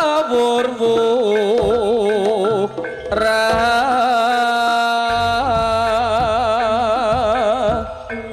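Live jaranan ensemble music: a heavily ornamented high melody with a wide, wavering vibrato over held gamelan tones. Low drum strokes come in about five seconds in.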